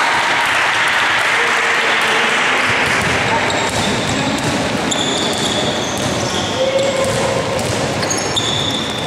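Indoor basketball game sound: a ball being dribbled and sneakers squeaking briefly on the court floor, about five seconds in and again near the end, over steady voices from players and spectators.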